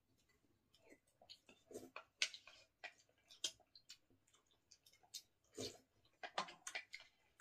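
Quiet eating sounds from two people taking soup from lacquered bowls. There are irregular soft clicks of spoons against the bowls, mixed with sips and chewing, and the two loudest sips come about two and five and a half seconds in.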